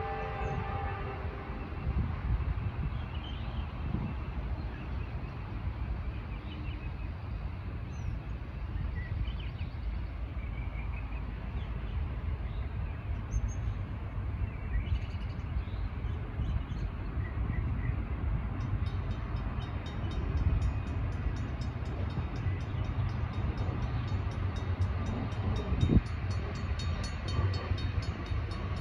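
Freight train approaching out of sight: a steady low rumble, with the end of a horn blast in the first half-second and a few faint bird chirps. About two-thirds of the way in, a fast high-pitched ticking joins.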